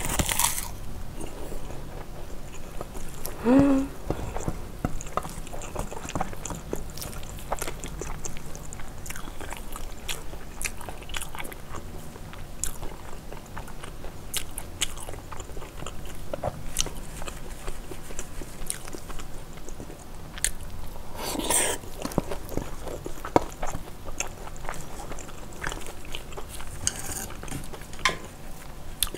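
Close-up chewing and wet smacking of a mouthful of spicy braised kimchi with pork and glass noodles, with scattered small clicks and bites. A short rising vocal hum about three and a half seconds in, and a longer, louder mouth noise about 21 seconds in.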